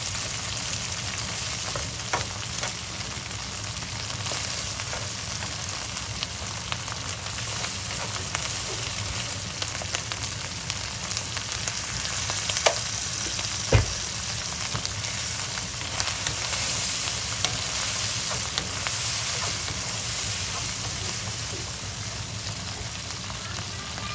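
Food sizzling and crackling steadily in hot oil in a pan, with one short knock of a utensil or pan about halfway through.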